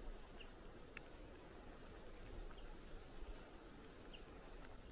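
Faint, brief high-pitched chirps of small woodland songbirds, a handful of scattered calls over a quiet background.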